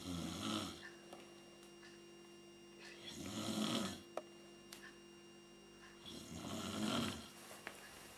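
A sleeping person snoring: three snores about three seconds apart, each about a second long.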